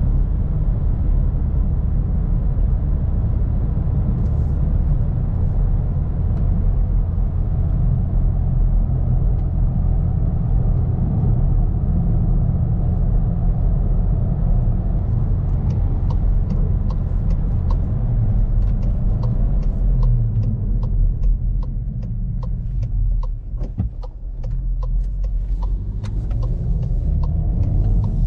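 Cabin sound of a Skoda Karoq with its 1.5 TSI four-cylinder turbo petrol engine and tyres giving a steady low rumble at cruising speed. About fifteen seconds in, a regular ticking of the turn-signal indicator starts, about two to three ticks a second, as the car nears a junction. The rumble drops for a moment about 23 seconds in.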